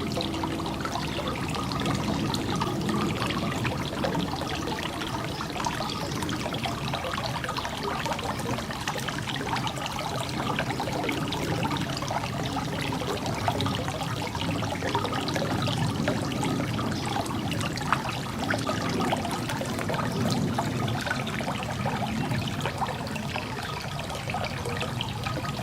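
Garden fountain water splashing and trickling steadily.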